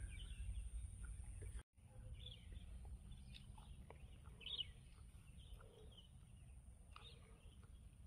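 Quiet forest ambience: a few faint, scattered bird chirps over a low steady rumble. The sound cuts out for an instant a little under two seconds in.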